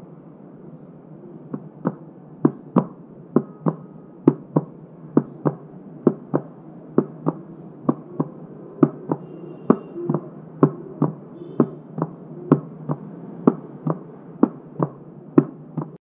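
Fingertips tapping on a cardboard box in pairs, a quick double knock about once a second, imitating the first and second heart sounds (S1 and S2, "lub-dub") of a normal heartbeat. The tapping starts about a second and a half in over a faint steady background hiss.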